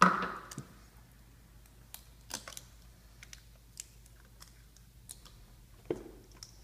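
A cardboard product box being handled by hand: a loud knock at the start as it is grabbed, then scattered light clicks and scuffs as it is lifted and turned over, and another knock near the end.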